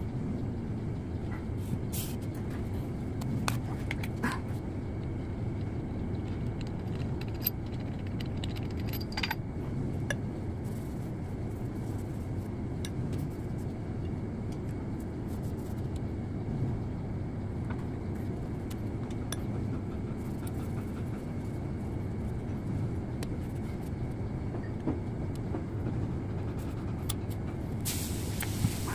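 Light metallic clinks and clicks of pistons and connecting rods being handled on a steel workbench, over a steady low background hum, with a brief hiss near the end.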